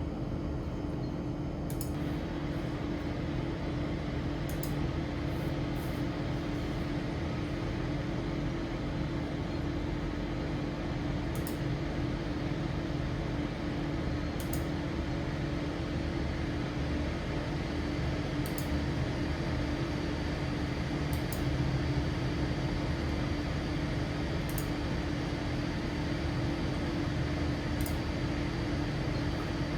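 A steady machine hum with a constant low tone, like a fan or motor running, and a few faint clicks scattered through it.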